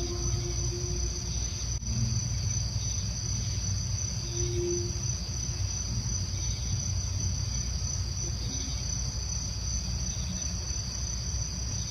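Steady high-pitched chorus of night insects such as crickets over a continuous low rumble, with a brief low tone sounding once about four and a half seconds in.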